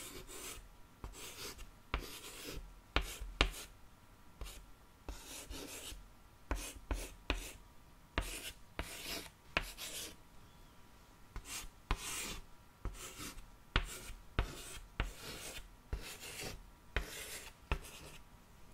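Writing on paper close to the microphone: irregular scratchy strokes with occasional sharp taps.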